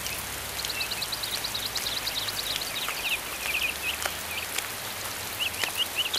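Steady rain falling, with runs of rapid, high chirping calls repeating through it.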